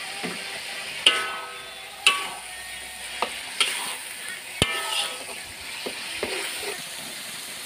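Rendang spice paste and turmeric leaves sizzling in oil in a metal wok, cooked to the stage where the oil has separated from the paste. A spatula scrapes through it and strikes the wok with sharp ringing clangs, five times in the first five seconds, then lighter knocks.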